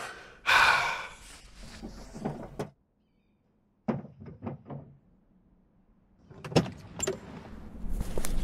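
Car interior Foley: a short rush of noise, then a quick run of about five taps as a glovebox is reached into. Near the end a car door latch clicks twice and the door swings open, with outside noise rising.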